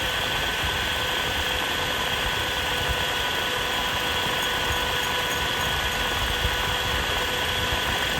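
Eberspächer Airtronic D2 heater's small electric blower motor running steadily on a 12-volt battery, a constant motor whine with a rumble beneath. The owner judges its brushes worn.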